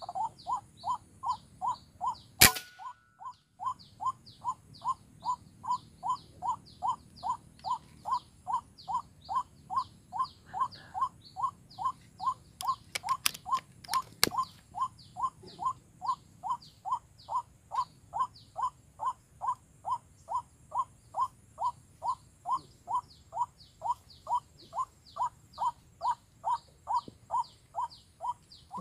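White-breasted waterhen calling, one harsh note repeated very evenly about twice a second without a break. A single sharp crack sounds once, about two and a half seconds in.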